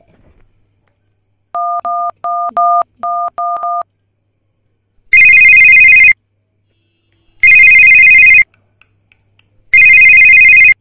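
Mobile phone keypad beeping about six times as a number is dialled, each beep two steady tones together. Then a loud ringing tone sounds three times, about a second each with pauses between, as the call rings through.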